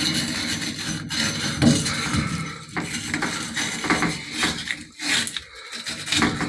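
Wire brush scrubbing corrosion out of the inside of a Delta tub-and-shower valve body after the old cartridge is pulled, in continuous uneven strokes.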